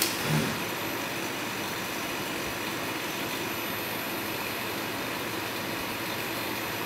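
Steady mechanical hum from the tile-placing assembly robot and its equipment while the arm moves. A sharp click comes right at the start, followed by a short low knock a moment later.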